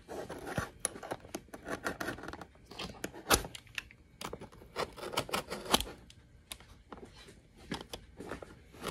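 Utility knife cutting through the packing tape and cardboard seams of a shipping box: short scraping strokes broken by many sharp clicks and crackles.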